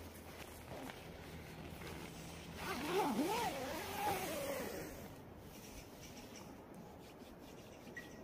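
A zipper being pulled, a rasp that rises and falls in pitch for about two seconds, a little under three seconds in.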